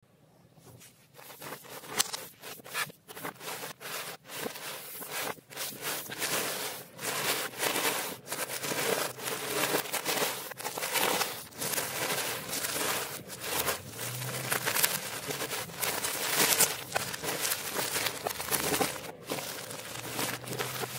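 A large pile of loose EeBoo 1,000-piece jigsaw pieces, thin glossy cardboard, being scooped up and shuffled by hand on a tabletop: a continuous, irregular clatter and rustle of pieces sliding and dropping against one another.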